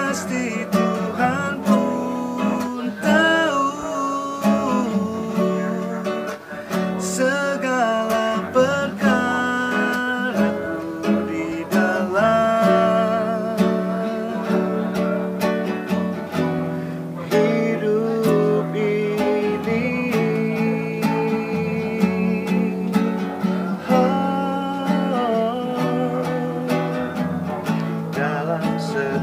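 A man singing a melody while strumming chords on an acoustic guitar.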